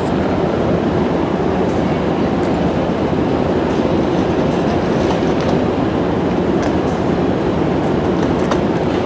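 Stopped Metrolink passenger train at a station, its diesel locomotive running at a standstill: a loud, steady low rumble with a few faint clicks.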